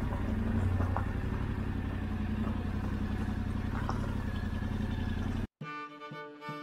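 Motorcycle engine idling steadily, with a few faint clicks. It cuts off abruptly about five and a half seconds in, and violin music begins.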